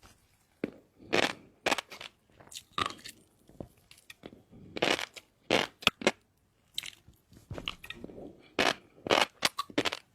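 Close-miked eating of shrimp with fish roe: irregular bites, crunches and wet chewing clicks, one after another with short pauses.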